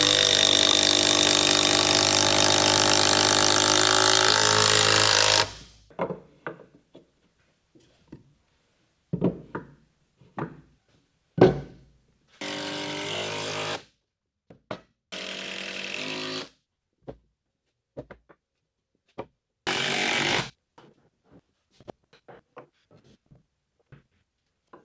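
Milwaukee M18 stubby 3/8-inch impact wrench driving 6-inch Torx timber screws into wooden cribbing: one long, loud run of hammering for about five seconds, then three shorter runs later on. In between, short wooden knocks as blocks are set down.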